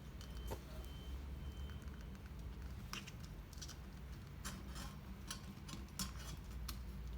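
Irregular small clicks and taps of clock parts being handled and fitted onto a wall clock's mechanism, most of them in the second half, over a low steady hum.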